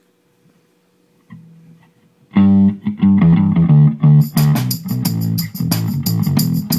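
A rock band starts a song. After a faint hum and a few soft guitar notes, bass and distorted electric guitars come in loud about two seconds in, and the drums with a steady cymbal beat join about four seconds in.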